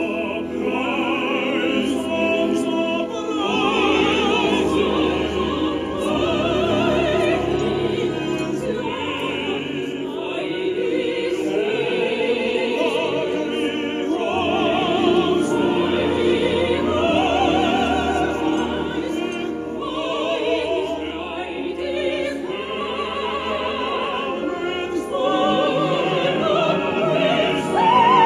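Operatic trio of soprano, tenor and baritone singing with vibrato over a live orchestra, rising to a loud high soprano note near the end.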